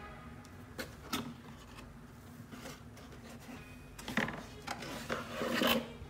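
Cardboard box being handled and opened, with the aluminium Bialetti Moka Express pot slid out of it: cardboard and metal rubbing and scraping, with a few light knocks. The loudest scrape comes near the end.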